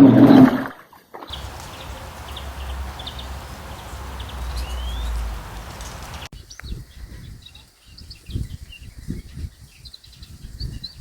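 Birds chirping in short high notes over steady outdoor background noise with a low rumble. A different, quieter stretch of scattered chirps and low knocks begins about six seconds in. A loud sound ends within the first second.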